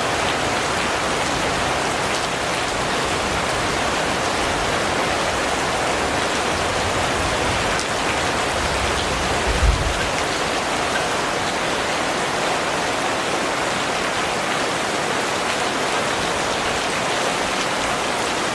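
Steady rain falling and pattering on surfaces, with a brief low thump about halfway through.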